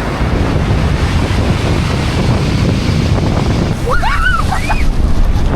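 Ocean surf washing on a beach, with strong wind buffeting the microphone in a heavy low rumble. About four seconds in, a brief high call glides up and down a few times.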